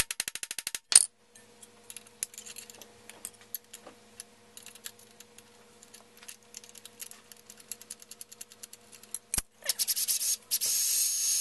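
Hammer striking a centre punch on the steel shark fin and swing arm: a quick run of light metallic ticks, then one hard strike about a second in, followed by faint ticks of handling. Near the end a cordless drill starts up and runs steadily, drilling the pilot hole into the swing arm.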